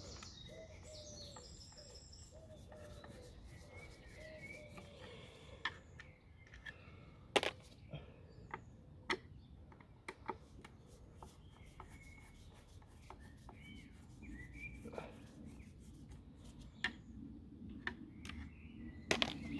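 Faint clicks, knocks and rubbing as the two T15 Torx screws holding the Dyson DC04's plastic cyclone assembly are undone and the parts are handled, with one sharper knock about seven seconds in.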